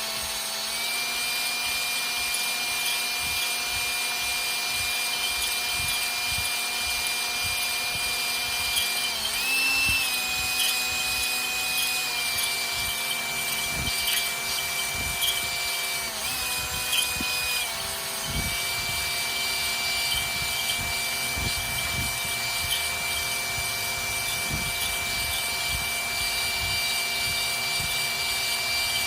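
Electric drill spinning a lubricated hone inside a truck cab hinge bushing: a steady motor whine over the rubbing grind of the hone's stones on the bore. The motor's pitch wavers briefly twice, about nine and sixteen seconds in. The bushing is being honed out because the hinge pin is too big to pass through it.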